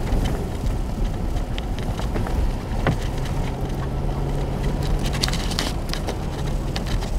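In-cabin noise of a Nissan Xterra SUV driving slowly on a snow-covered road: a steady low rumble of engine and tyres, with scattered short ticks and a low hum that comes in about three seconds in and fades about two seconds later.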